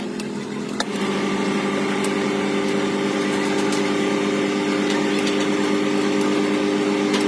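A machine motor running steadily with an even hum, growing louder about a second in.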